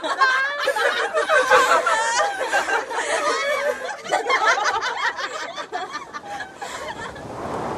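Several women laughing and giggling together, many voices overlapping. Near the end the laughter dies away and a rushing noise swells in.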